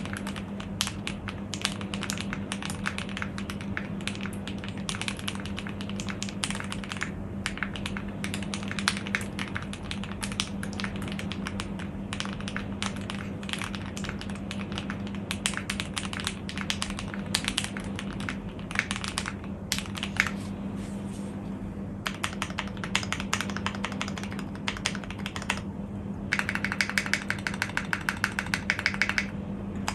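Zoom65 mechanical keyboard being typed on in a steady stream of keystrokes. Its switches are lubed with 205g0 and its stabilisers holee-modded. A faster, sharper run of strokes comes near the end, over a steady low hum.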